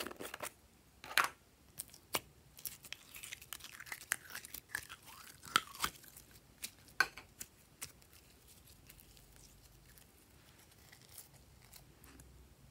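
Thick green slime being pulled from its container and squeezed by hand, making sticky crackling and clicking sounds; the crackling dies down after about eight seconds.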